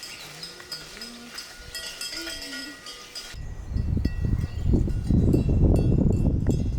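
Livestock bells clinking with a few short low animal calls. About three seconds in this cuts abruptly to loud low rumbling noise.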